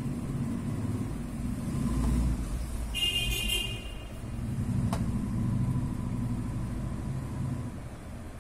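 Low mechanical rumble that swells and fades twice, with a short high-pitched toot about three seconds in and a sharp click near five seconds.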